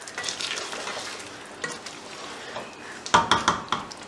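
Wooden slotted spatula stirring chicken in a thin yogurt-and-almond gravy in a non-stick pot, over a steady simmering sizzle. About three seconds in comes a short run of knocks and scrapes of the spatula against the pot.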